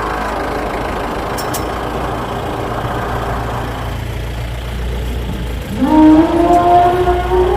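Steady vehicle-engine noise at idle, then about six seconds in an elephant trumpets loudly: a call that slides up and is held on one pitch, running on past the end.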